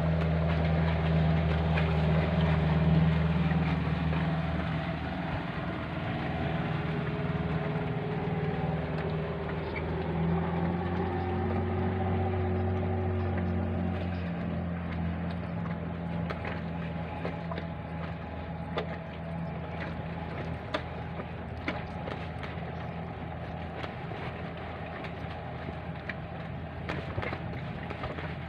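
Boat engine running nearby with a steady low drone that slowly fades over the second half, with faint small clicks later on.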